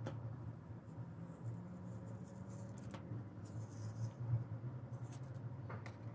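Masking tape being peeled slowly off paper: soft, scratchy crackling, strongest from about one and a half to three and a half seconds in and again near the end, over a steady low hum.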